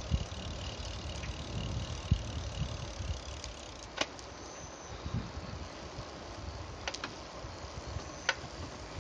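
A bicycle ridden along a paved path, with wind rumbling on the microphone and a few sharp clicks and rattles from the bike, the clearest about four seconds in and near the end.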